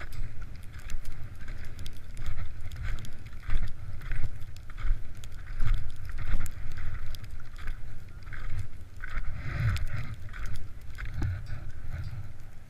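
Touring skis fitted with ski crampons crunching and scraping over crusted snow, about two strides a second, with wind rumbling on the microphone.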